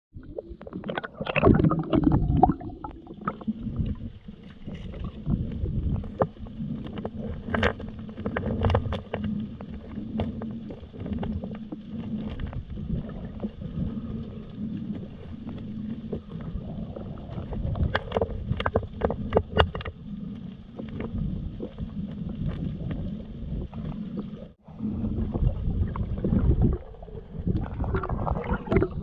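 Muffled, steady rush of a strong river current heard underwater, with clusters of sharp clicks and knocks twice along the way.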